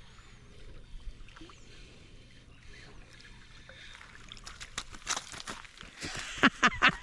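Water splashing and knocking at a kayak: faint lapping at first, then from about four seconds in a quickening run of sharp splashes and knocks, loudest near the end.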